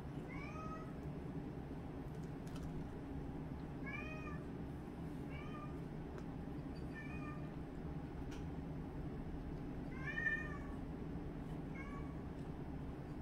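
A small animal's short, high, pitched calls, several over a few seconds, each rising then falling, the loudest about ten seconds in, over a steady low hum.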